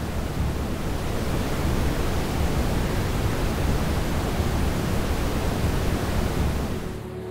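Steady roar of a large waterfall: a dense, even rush of falling water with a deep rumble underneath, fading near the end.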